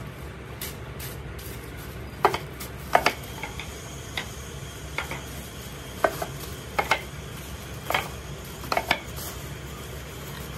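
Irregular light knocks and clinks, roughly one a second, as plastic-wrapped items are laid into a cardboard box by hand, over a steady low background hum.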